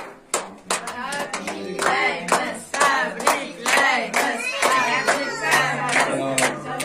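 Group of people clapping in a steady rhythm, about two to three claps a second, with voices singing and calling out over the claps.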